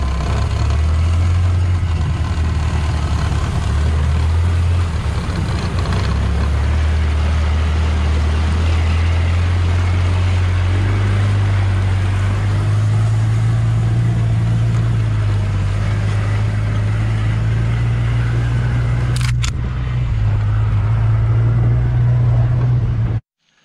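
Side-by-side UTV driving over a rough dirt farm track: a steady engine drone whose low hum shifts in pitch a few times as the speed changes, with a single knock about nineteen seconds in. The sound cuts off suddenly just before the end.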